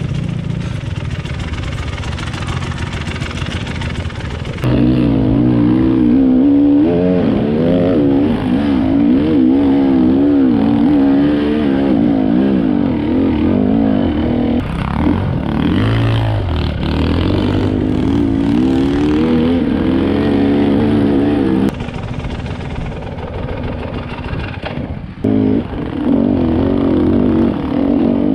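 Enduro dirt bike engine under way on a trail, its revs rising and falling constantly with the throttle. It gets louder about five seconds in, eases off after about twenty-two seconds, and picks up hard again near the end.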